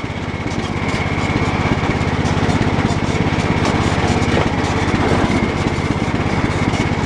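Cub Cadet 1018 lawn tractor's engine running steadily under way, with a thin steady high whine above the engine note.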